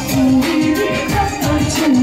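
A woman singing into a microphone over an amplified pop backing track with a steady beat.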